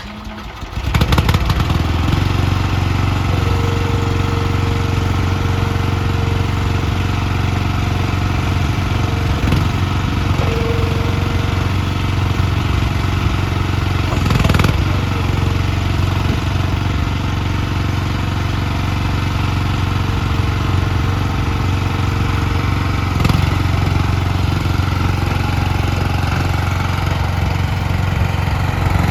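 Future FT36C skid steer loader's engine catching about a second in, then running steadily at idle with a low, even hum.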